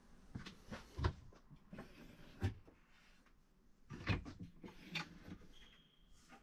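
Motorhome overhead cupboard doors with gas-strut hinges being opened by hand: a series of sharp latch clicks and knocks of the doors, the loudest about a second in, two and a half seconds in and four seconds in.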